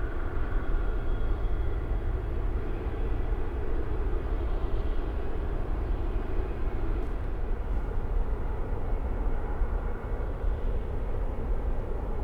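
Distant oil refinery heard from about a mile away: a steady industrial rumble and hiss, heaviest in the low end, with the sound of the refinery's burn-off flares part of it. Faint whining tones sit over it in the first few seconds.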